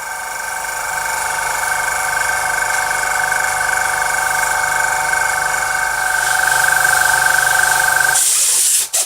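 Repaired airbrush compressor running steadily with a whine over a low pulsing hum, no longer sticking. Near the end its running sound stops, followed by a short hiss and a click.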